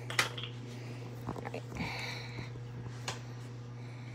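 A few light clicks and taps of kitchen items being handled over a steady low hum.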